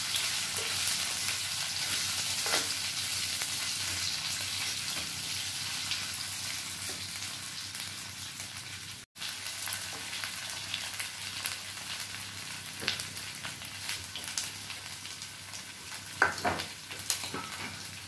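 Diced boiled potatoes sizzling in hot ghee with spices in a nonstick kadhai, stirred with a wooden spatula. There is a brief break in the sizzle about halfway, and a few scrapes of the spatula in the second half.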